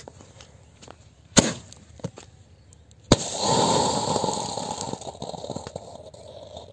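Cock-brand Penta Sky Plus sky shot firework going off: a sharp pop about a second and a half in, then a sudden crack about three seconds in followed by a steady hissing rush of burning charge that fades over about three seconds.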